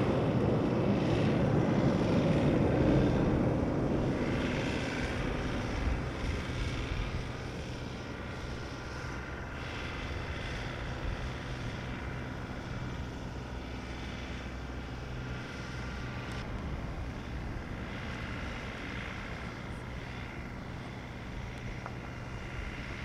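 Jet airliner engine noise, loud at first and fading away over the first seven seconds or so, then a steady, quieter low hum.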